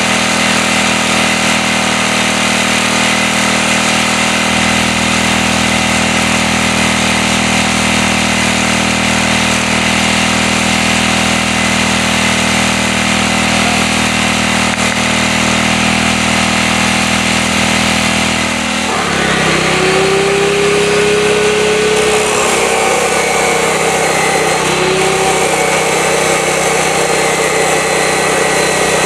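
A steady motor drone runs throughout, with an abrupt change in pitch and tone about two-thirds in. Near the end a DeWalt abrasive chop saw's wheel is grinding through metal.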